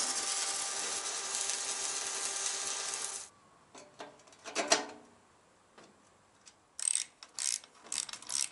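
Electric arc welding sizzling steadily on a motorcycle's rear fender bracket, cutting off about three seconds in. Then a few clicks and knocks as a brake light is handled, and from about seven seconds a hand ratchet clicking rapidly as the light's mounting nut is tightened.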